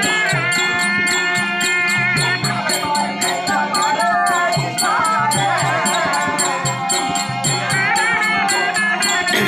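Live Tamil folk-drama (therukoothu) accompaniment: a drum and small hand cymbals keep a quick, steady beat, with a wavering melody line over it.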